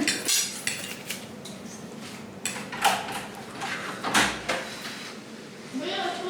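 Cutlery clinking against a plate a few separate times during a meal.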